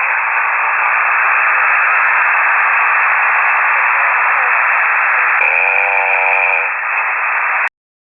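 Amateur radio signal received on a KiwiSDR web receiver: steady, narrow-band static hiss. About five and a half seconds in, a droning, pitched snore-like sound lasts about a second, taken to be a ham snoring into a live microphone. The audio cuts off suddenly near the end.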